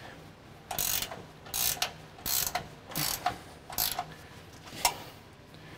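Hand ratchet with an 18 mm socket clicking in about six short bursts, one per back-swing, as the upper control arm bolts are snugged down but not yet torqued.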